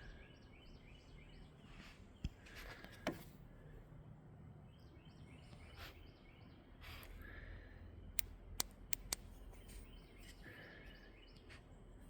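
Faint outdoor ambience with a distant bird singing short runs of quickly repeated notes three times, and a few sharp clicks, two of them a couple of seconds in and a quick cluster of three about eight to nine seconds in.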